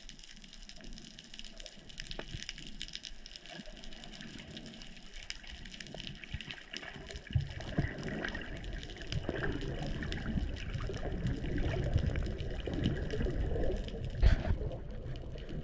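Underwater water noise as a freediver descends: a steady hiss full of fine crackles, with a low rushing of water that grows louder about halfway through and a sharp thump near the end.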